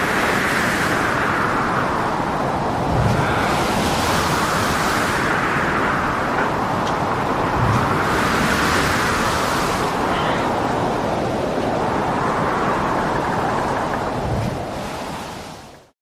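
Storm at sea: wind and heavy waves making a loud, continuous rush that swells and ebbs about every four seconds, with low thuds as waves break. The sound fades out quickly at the very end.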